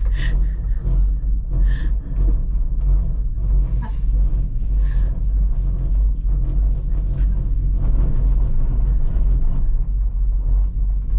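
A steady, loud low rumble that starts suddenly, with a few brief high chirps in the first five seconds.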